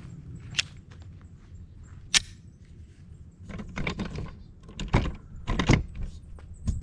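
Pistol shots fired one at a time at an irregular pace, about half a dozen sharp cracks, the loudest about two seconds in and twice near the five-second mark.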